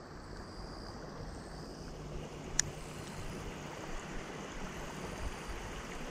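Steady wind noise on the microphone, with one sharp click about two and a half seconds in.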